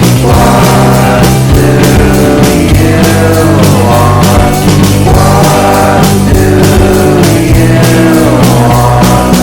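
Background rock music with a steady beat and repeated falling pitch slides.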